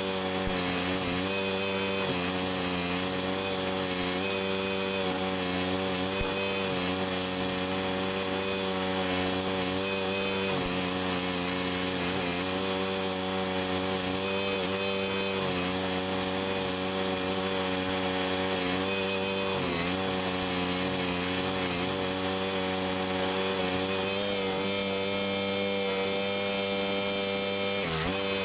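Baretto stump grinder's gasoline engine running at high speed. Its pitch sags briefly several times as the cutting wheel loads up grinding into a stump.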